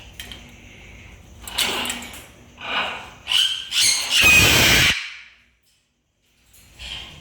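Parrots screeching, a string of four harsh calls with the last and loudest one about halfway through, followed by about a second of dead silence.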